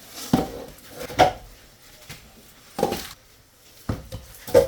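Pieces of firewood knocking against each other as they are set down and stacked, about five separate wooden knocks spread over a few seconds.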